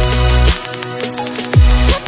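Background electronic music: a synth line over deep bass-drum hits that drop in pitch, two of them in these two seconds.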